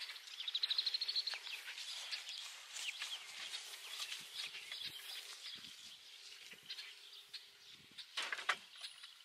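Birds chirping outdoors, opening with a rapid trill of repeated high notes, then scattered short chirps. A brief louder noise comes near the end.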